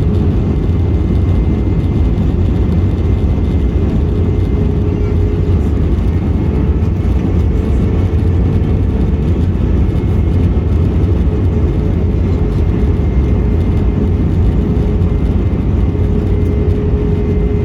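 Steady engine and airflow noise of an Airbus A321 heard inside the cabin: a deep, even rumble with a steady hum over it.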